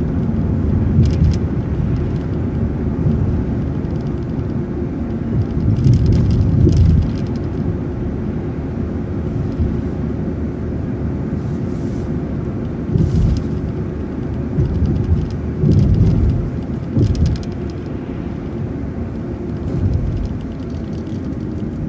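City transit bus on the move: a steady engine drone and road rumble, swelling louder a few times, with short rattles and clicks now and then.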